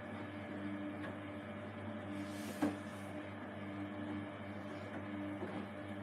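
Samsung WW80J5555FWEU front-loading washing machine tumbling a towel in water on its 15-minute quick wash: a steady drum-motor hum with a whine that comes and goes. A brief splash-like hiss, then a single knock about two and a half seconds in.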